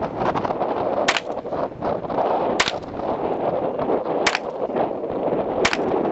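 Four single shots from a .22 LR M4-style rifle (Colt M4 .22), fired about a second and a half apart.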